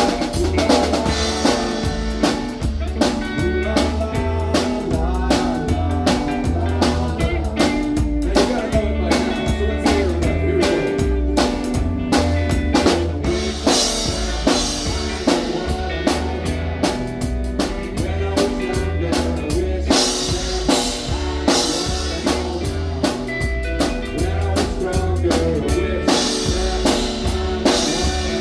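A band playing an instrumental passage with no singing, the drum kit to the fore: regular snare and bass drum hits over a steady bass line.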